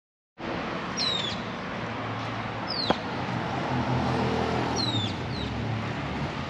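Street ambience: a steady low traffic rumble that swells in the middle as a vehicle goes by, with a bird giving short high downward chirps several times. One sharp click about three seconds in.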